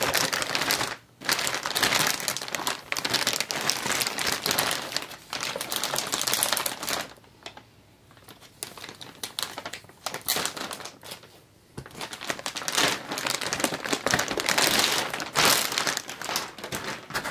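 Plastic packaging crinkling and rustling while a toy Beyblade stadium is unwrapped and handled, in irregular spells with a few short pauses.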